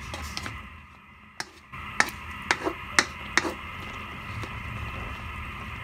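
Pot of pork and guava sinigang simmering: a steady hiss, with a handful of sharp clicks about two to three seconds in.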